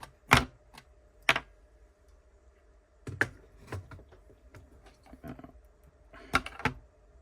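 Small circuit boards being handled and set down on a workbench: a string of sharp, irregular clicks and knocks, the two loudest near the start.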